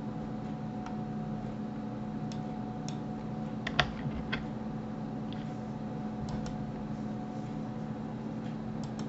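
Scattered clicks of a computer mouse and keyboard, a few sharp ones close together about four seconds in, over a steady low hum.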